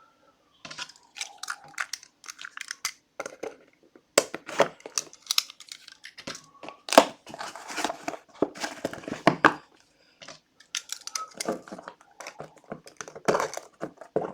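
Plastic wrapping of a sealed trading-card pack being torn and crinkled open by hand, with irregular crackles and tearing sounds and a couple of brief pauses.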